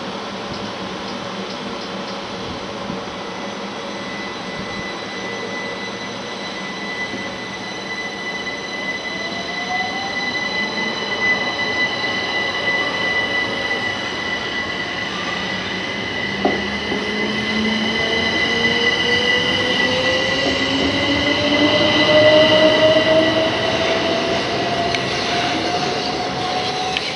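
Southeastern Electrostar electric multiple unit pulling away from the platform: its traction motors give a whine that climbs steadily in pitch as the train accelerates, strongest from about halfway through, over steady high-pitched tones and a running rumble that grows louder and then eases near the end.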